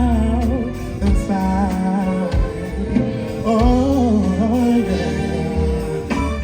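Background song with a singing voice over a steady bass line and beat.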